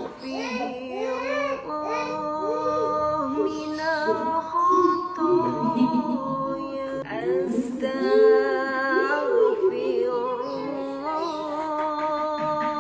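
Music with singing: long held notes with a wavering pitch, mixed with shorter rising and falling phrases.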